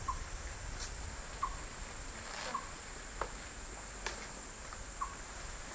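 Insects droning steadily at a high pitch. Short faint chirping notes come about once a second over it, with a few soft clicks.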